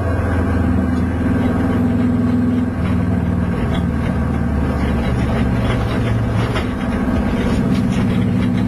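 Subaru-engined Mk1 Golf GTI running hard, heard from inside the cabin: a steady, loud engine note that briefly drops twice as the pitch shifts, once about a third of the way in and again near the end.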